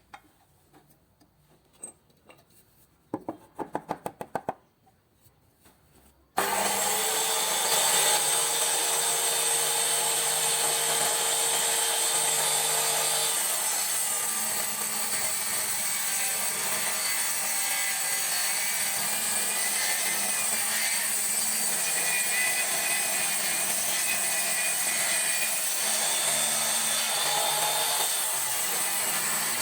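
Handheld cutting machine fitted with a circular saw blade starts suddenly about six seconds in and runs steadily, cutting wood, with a high whine over the noise. Before it starts there is a short run of rapid clicks.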